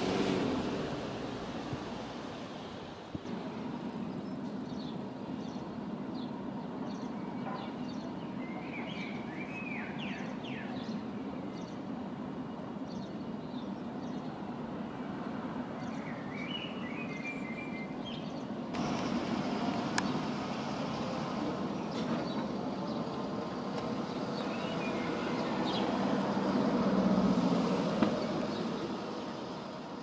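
Steady low rumble of distant city traffic, with short bird chirps and twitters about a third of the way in and again a little past the middle. The rumble swells briefly near the end.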